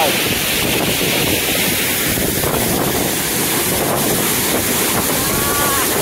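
Steady rush of a waterfall close by, mixed with wind buffeting the microphone.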